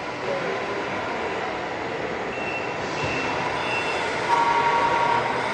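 Scale RC truck sound module playing a truck engine sound, with three short high beeps around the middle, like a reversing alarm, and a louder held tone near the end.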